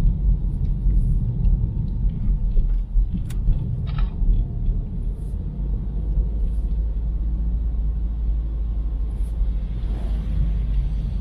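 Steady low road and engine rumble of a car driving, heard from inside the cabin, with a couple of small clicks about three and four seconds in.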